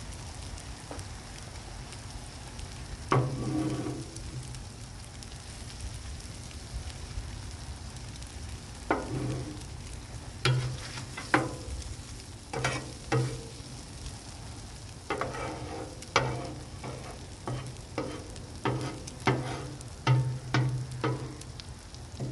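Metal spatula strokes scraping and clanking on a Blackstone griddle's steel cooktop over a steady sizzle of food frying. One stroke comes about three seconds in, then a quick run of short scrapes from about nine seconds in.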